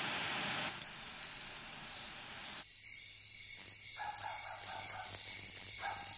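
A steady static hiss, as from a television showing no picture, cuts off and a small metal wind chime rings sharply with a few quick clinks, then fades away over about two seconds. Faint night ambience with soft chirping follows.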